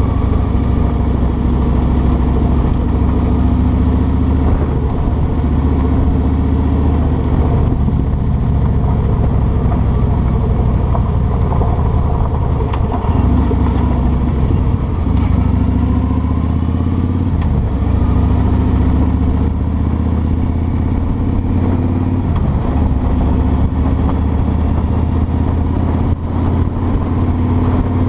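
Kawasaki Vulcan 2000's 2-litre V-twin engine running under way. Its pitch climbs as the bike accelerates and drops back a few times.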